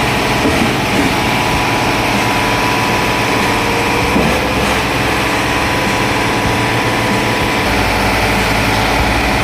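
Concrete pump's engine running steadily under load, a loud continuous machine drone with a faint steady whine.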